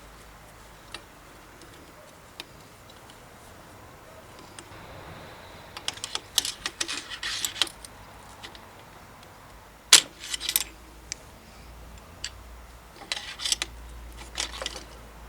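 Metal tools and bike parts clinking and tapping as they are handled in workshop work: scattered single clicks, then several quick clusters of clinks, with one sharper knock about ten seconds in.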